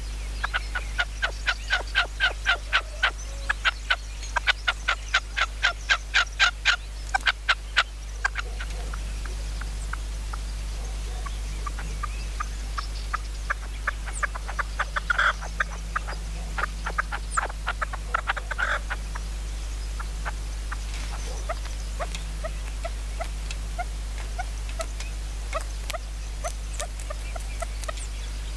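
Red-legged partridge calling: a fast, rhythmic run of sharp notes, about three or four a second, for the first eight seconds, then shorter runs in the middle and fainter scattered notes towards the end.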